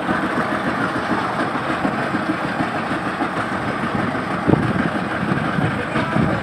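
Boat engine running steadily at idle, with a brief low thump about four and a half seconds in.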